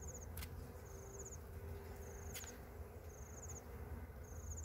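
An insect chirping in short, high trills of a few quick strokes each, about one a second, over a steady low rumble, with two sharp clicks.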